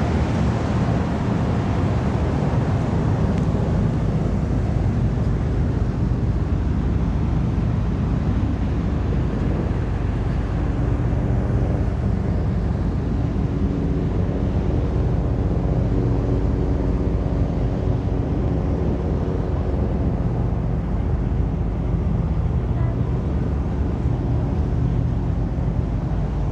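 Steady low rumble and hum of the car ferry Katsuragi under way, with wind buffeting the microphone on the open deck.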